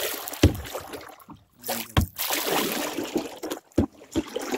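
Canoe being paddled: the paddle swishes and drips in the water, with three dull knocks against the hull.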